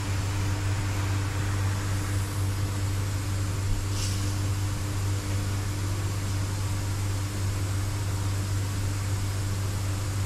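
Steady electric machine hum with an even hiss running under it. A brief, higher hiss comes about four seconds in.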